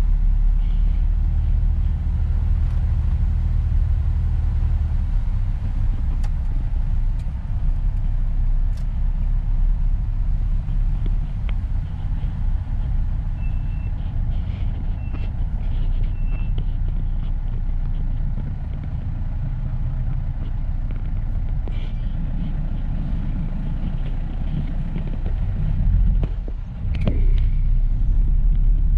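Steady low rumble of a Mitsubishi Pajero's engine and road noise as it drives, with three short high beeps about halfway through.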